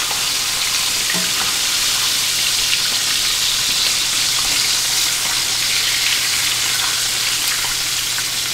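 Panko-breaded grouper cheeks frying in hot oil in a skillet: a steady, even sizzle, with a few faint clicks of metal tongs.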